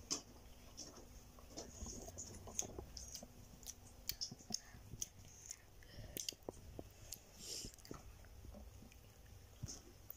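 Children biting and chewing fried andrasay, sweet fried dough cakes: faint, irregular little clicks and mouth sounds of eating.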